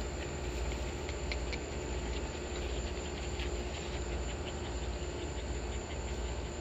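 Steady outdoor background of insects chirping over a low rumble.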